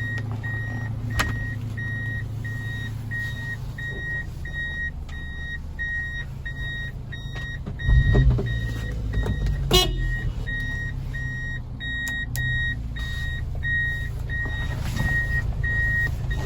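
A 1999 Subaru Sambar four-cylinder mini truck sits running at a steady idle while an electronic warning buzzer beeps evenly, about twice a second. A loud thump comes about eight seconds in, with sharp clicks shortly before and after it.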